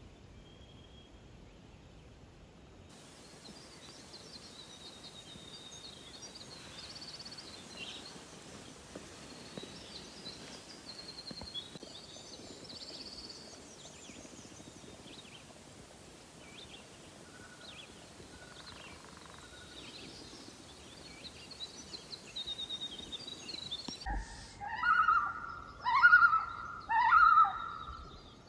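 Wild birds chirping and singing across a calm lake, many short high calls over a faint hiss. Near the end, after a cut, a louder call is repeated several times in quick succession.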